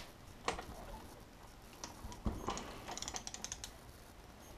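Hand tools on transmission bolts: a few metal clinks and a knock, then a quick run of ratchet clicks from a socket wrench being swung back and forth on a bellhousing bolt, about two and a half seconds in.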